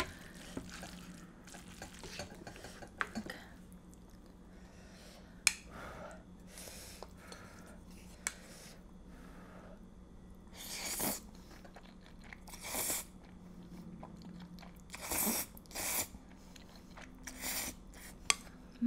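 Close-miked eating of creamy spaghetti carbonara. A few sharp clicks of utensils on the pot and bowl come in the first half, then four loud noodle slurps about two seconds apart, with wet chewing between them.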